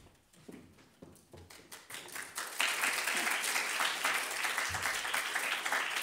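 Audience applause that breaks out about two seconds in and carries on steadily, after a quiet start with a few faint knocks.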